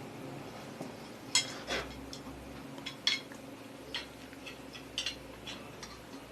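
Small metal parts and hand tools clicking and clinking on a workbench as a sewing machine motor is worked on, in irregular knocks, a handful of sharper ones about a second apart, over a faint steady hum.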